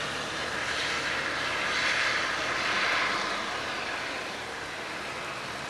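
Rushing hiss of thunderstorm wind and rain. It swells to its loudest about two to three seconds in, then eases off.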